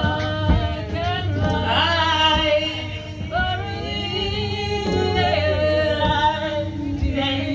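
Music: singing voices holding and gliding between long notes over a steady low drone.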